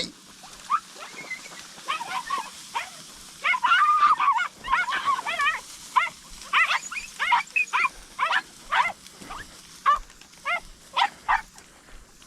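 Podenco hounds yelping over and over, short high yelps coming thick and fast with a run of quavering cries about four seconds in: hounds giving tongue as they chase a rabbit.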